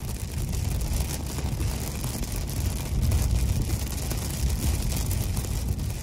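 A car driving: a steady low rumble of road and wind noise, with a hiss on top.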